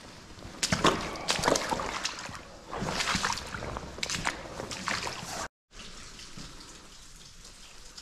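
Wader-clad footsteps sloshing through wet silt and water, with water trickling and dripping, as a run of irregular splashy strokes. About five and a half seconds in the sound cuts out for a moment, then only a quieter dripping wash remains.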